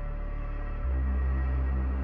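Background music: a dark ambient score of low sustained bass notes with steady tones above, the bass moving to a new, louder note about a second in.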